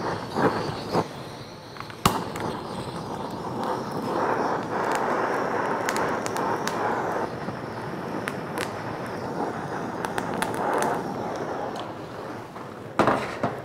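Handheld gas kitchen torch hissing steadily as its flame sears raw prawns on an upturned stainless steel pan, with frequent sharp crackles and pops, and a louder burst near the end.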